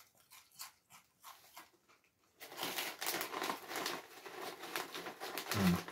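Smith's Double Crunch crisps being chewed, soft crunches a few times a second, then from about two and a half seconds a foil crisp packet crinkling as a hand rummages in it for another crisp.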